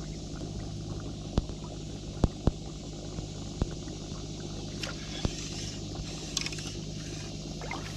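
Steady low hum of a boat motor, with a handful of sharp knocks and clicks scattered through it and a short hiss about five seconds in.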